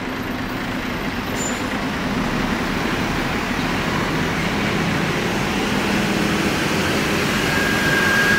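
Large diesel bus engines running as buses pull out and move past close by, growing steadily louder. A steady low engine hum runs under the noise, and a thin high whine starts near the end.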